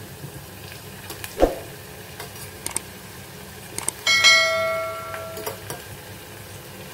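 Potatoes sizzling in hot oil, with a dull knock about a second and a half in and a loud ringing metal clang about four seconds in that dies away over about a second.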